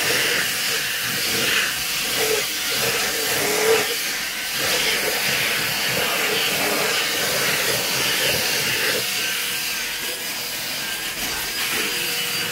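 Steady hiss of a handheld cleaning gun worked over fabric car-seat upholstery, with small swells as it is pressed and moved.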